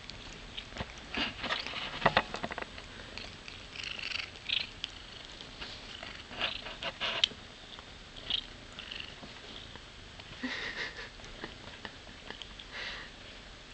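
A young cat nibbling and chewing on fingers held close to the microphone: soft, irregular clicks and rustles that come in scattered bunches with quieter gaps between.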